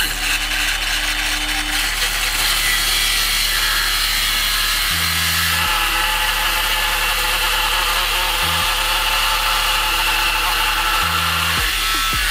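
Cordless power saw cutting through a pressure-treated lumber stair tread in one long, steady cut that starts and stops abruptly, with background music underneath.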